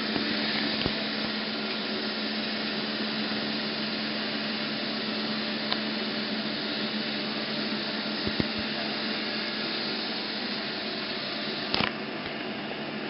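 Meba Eco-line 325 mm metal-cutting bandsaw running with a steady hum and machine noise, with a few short clicks and a sharp knock near the end.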